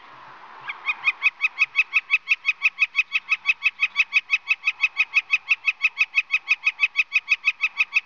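Northern flicker giving its long call: a rapid, very even series of short 'wick' notes, about six a second, starting about a second in and running on without a break.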